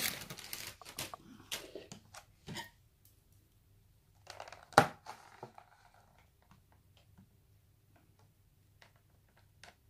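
Small handling noises of plastic tubs and lids being moved: light rustles and clicks, with one sharp click just under five seconds in, then only faint ticks.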